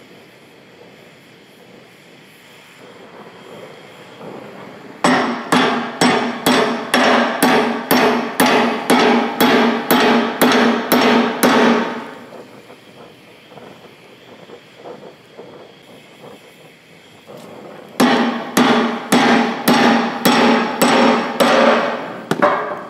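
An oxy-acetylene torch hisses as it heats a steel pin clamped in a bench vise. Then come two runs of quick hammer blows on the hot pin, two to three a second, each ringing off the steel: the first starts about five seconds in and lasts about seven seconds, and the second starts about eighteen seconds in, with the torch hissing again in between.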